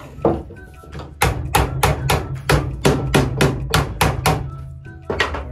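Hammer striking a PVC pipe frame, knocking the pipes into their fittings: a quick run of about fifteen strikes, about five a second, starting about a second in, with single strikes just before and after the run.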